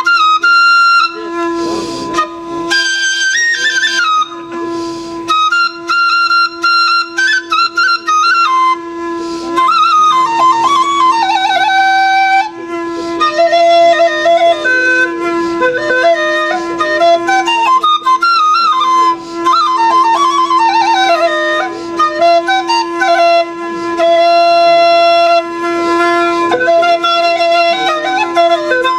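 Alghoza, the Sindhi twin-pipe flute, played solo: one pipe holds a steady drone while the other plays a winding, ornamented melody above it in short phrases.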